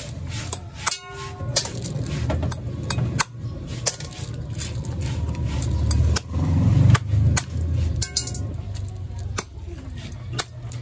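A knife chopping the tips off snail shells on a board: irregular sharp knocks and clicks, with a brief ringing clink about a second in, over a low steady hum.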